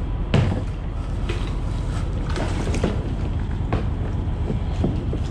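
Steady wind rumble on the microphone, with a few short knocks and scrapes scattered through it.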